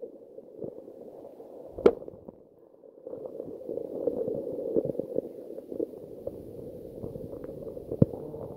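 Muffled water noise heard from under the surface: a dull, low wash with scattered small ticks. There is one sharp knock about two seconds in and a smaller click near the end.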